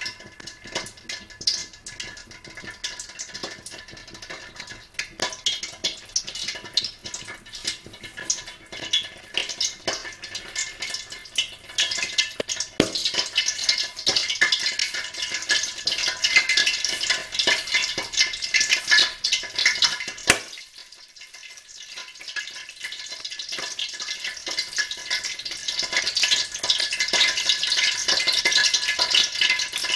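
Oil with a little water heating in a wok, sizzling and crackling with scattered pops as the water boils off. It grows busier about halfway through, falls quieter briefly about two-thirds of the way in, then builds again.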